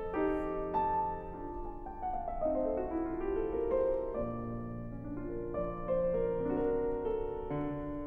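Background piano music: held notes and chords, with a quick run of stepping notes about two seconds in.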